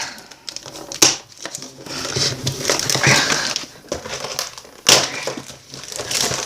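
Packaging of a trading-card box being torn open by hand, crinkling and crackling, with two sharp snaps, about a second in and near five seconds.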